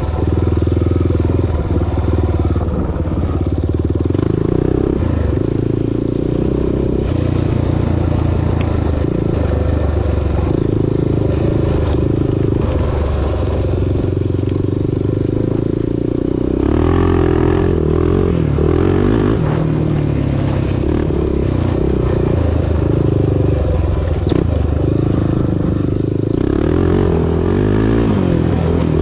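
2008 Honda TRX400EX quad's single-cylinder four-stroke engine running under way on a gravel trail, its revs rising and falling repeatedly, with rattling from the machine over the rough ground.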